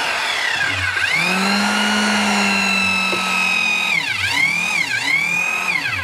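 Mud Mixer concrete mixer's motor and auger running loud with a whine that sags sharply in pitch about a second in and twice more near the end. The sags are the sign of the machine labouring under load while the concrete is jamming in the auger.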